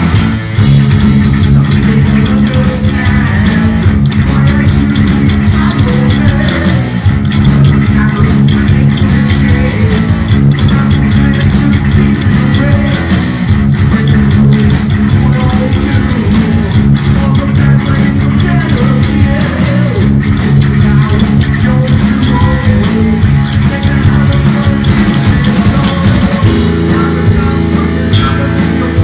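Heavy metal band playing live and loud: electric guitar over bass guitar and drums.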